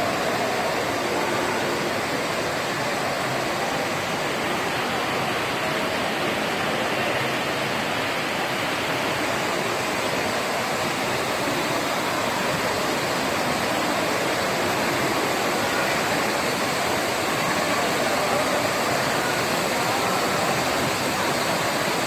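Steady splashing of a multi-jet indoor fountain, its water jets shooting up and falling back into the pool.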